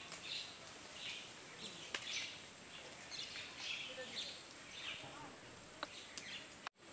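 Bird calls repeating every half second or so over a steady high whine, with a few sharp clicks. The sound cuts out for a moment near the end.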